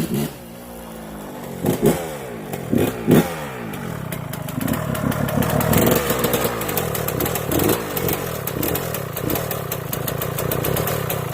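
Yamaha YZ125's single-cylinder two-stroke engine, just rebuilt, revved in about four sharp blips in the first few seconds, the pitch falling away after each. It then runs at a steadier, higher rev.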